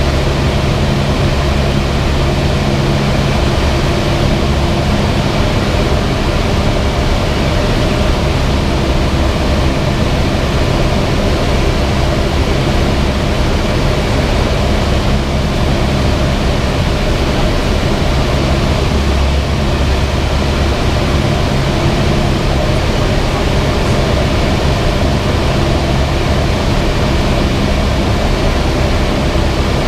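Cessna 172's piston engine and propeller running with a steady drone, under a constant rush of air noise.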